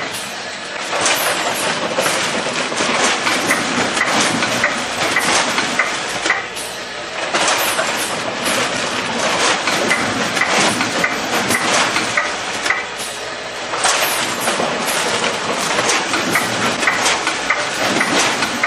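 Automated apple bagging line, a NEWTEC weigher feeding an Automated Packaging Systems SPrint Revolution pouch bagger, running: continuous mechanical clatter full of sharp clicks and short hisses, with a brief high tone repeating through it.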